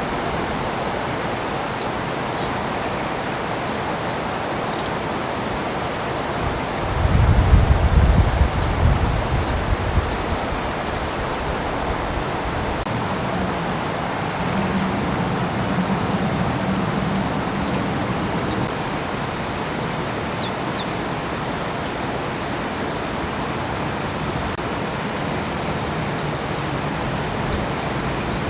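Steady outdoor rushing noise, with brief high bird chirps scattered through it. A louder low rumble comes in about seven seconds in and lasts a few seconds.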